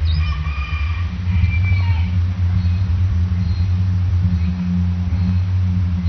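Loud, low, steady drone of the so-called strange sky sound, heard as if coming from the clouds, with thin high tones over it in the first two seconds.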